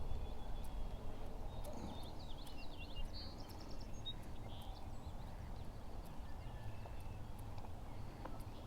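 Outdoor ambience from a fishing boat on a river: a low, uneven rumble of wind and water, with a bird chirping briefly about two to three seconds in and a few faint clicks.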